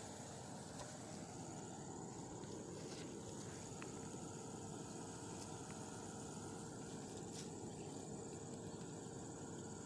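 Steady outdoor ambience at a reservoir bank: a continuous high-pitched insect trill with a steady low hum underneath, and a few faint clicks.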